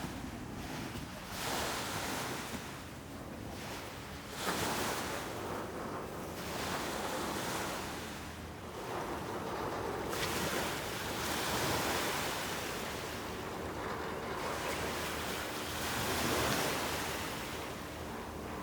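Wind and water noise on open salt water, a rushing hiss that swells and eases every second or few, with wind striking the microphone.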